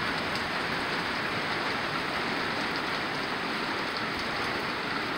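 Heavy rain falling steadily, a dense even hiss of rain on the porch and deck during a thunderstorm.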